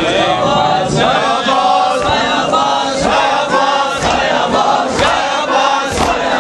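A crowd of men chanting a Muharram mourning chant together, with sharp hand-slaps of chest-beating (matam) about once a second in time with it.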